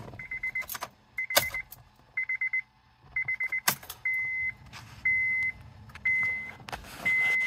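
Honda Accord's dashboard warning chime sounding about once a second, first as short bursts of rapid beeps and then, from about four seconds in, as single long tones, with the ignition on and the engine off. A few sharp clicks and some key jangling come in between the chimes.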